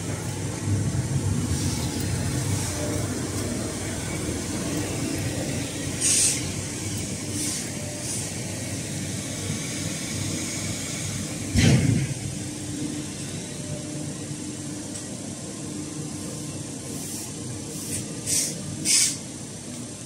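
Steady hum of workshop machinery, with several short hisses and one louder burst of noise about halfway through.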